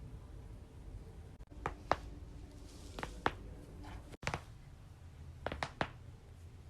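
Neck joints cracking: a series of sharp, short pops that come in pairs and quick runs, about eight in all.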